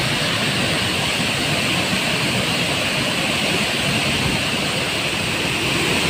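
A large waterfall in heavy flow pouring into its plunge pool close by: a steady, even rush of falling and churning water.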